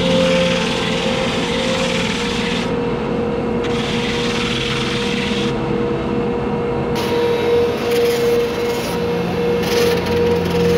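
Hand tool stroked along the wood of a wooden canoe paddle being shaped by hand: long abrasive strokes of about two seconds each with short pauses between, then shorter, quicker strokes in the last few seconds.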